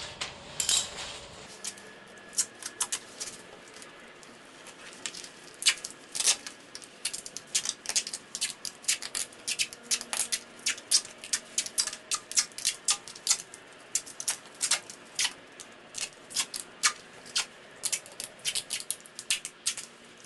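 Rapid, irregular sharp clicks, often several a second, from hands cutting and working the rubber inner-tube wrapping of a homemade sandbag. They start about a second and a half in.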